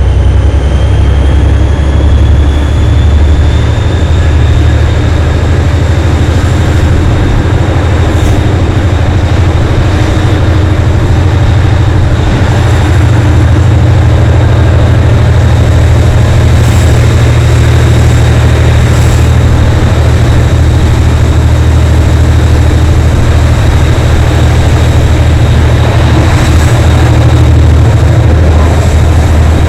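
Class 57 diesel locomotive's GM (EMD 645) two-stroke V12 engine working hard under load, heard close behind the locomotive: a loud, steady, heavy low drone with a high whine that rises over the first few seconds.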